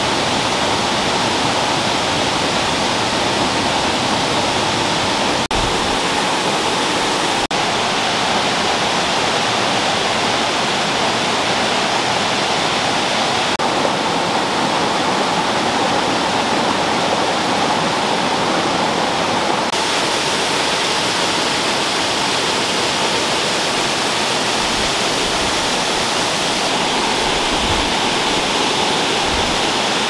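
Rushing mountain stream pouring over boulders and small cascades: a steady, unbroken rush of white water.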